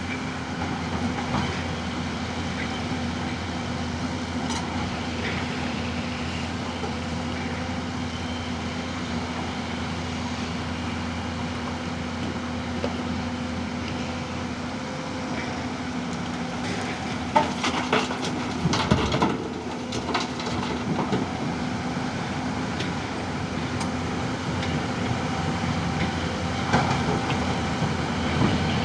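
Digger's diesel engine running steadily at working revs while it digs, with a cluster of sharp knocks about two-thirds of the way through.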